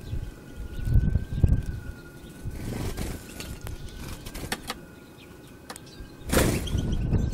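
Low, uneven rumbling noise on the microphone, with a few short, faint chirps from European goldfinches and a faint steady whine that wavers slowly up and down in pitch. A sudden rush of noise comes about six seconds in.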